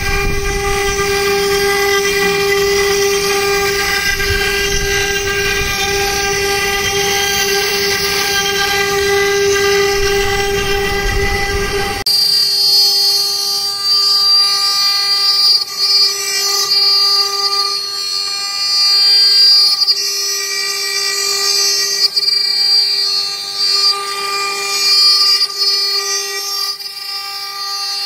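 CNC router spindle running at high speed, a steady pitched whine with a low rumble underneath as the bit engraves glass. About twelve seconds in the sound cuts abruptly to a spindle carving stone: the same whine, the rumble gone, a higher hiss added, and the level rising and falling as the bit works.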